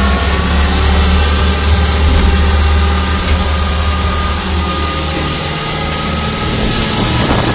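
A small boat's engine running steadily under way, heard from the wheelhouse, with a thin high whine above it.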